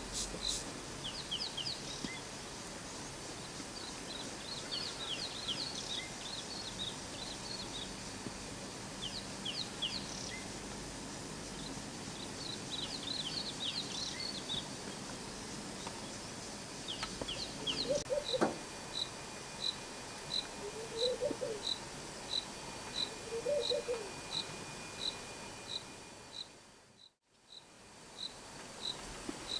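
Natural bush ambience: birds chirping and twittering over a steady background hiss, then an insect, likely a cricket, chirping in a regular pulse about one and a half times a second through the second half. A few short lower calls sound in between, and the sound drops out briefly near the end.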